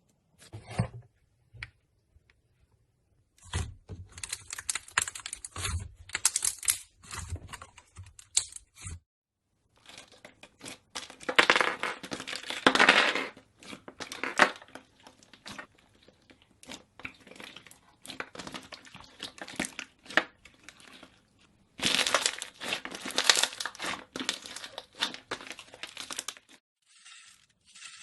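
Slime being squeezed and pressed by hand, giving dense crackling runs of small popping clicks in bursts of a few seconds, with short pauses between them.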